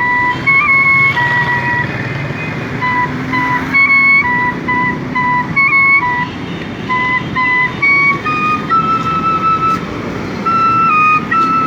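Bansri (bamboo flute) playing the melody of a naat in held notes that step up and down, over a steady rumble of street traffic.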